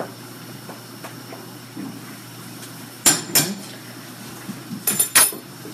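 Metal fork clinking against the pot while poking boiled carrots to test whether they are done: two sharp clinks about three seconds in, then three more near the end, each with a short metallic ring.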